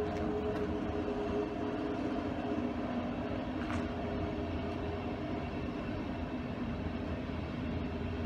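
Push-pull regional train of n-Wagen coaches with a class 111 electric locomotive moving along the platform. Steady rolling rumble with a steady electric hum, and one short click a little under four seconds in.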